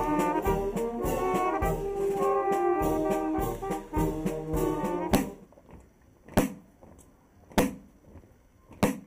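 Marching brass band playing a tune over steady drum beats. About five seconds in the tune stops, and a side drum keeps time alone with single strokes, three of them about a second and a quarter apart.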